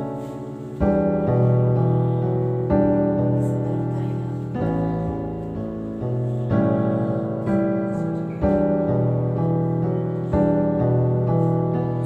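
Background piano music: slow sustained chords, a new one struck about every two seconds and fading before the next.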